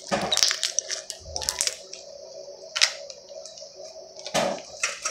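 Crunchy bead-filled slime being squeezed and poked, crackling in about four short bursts.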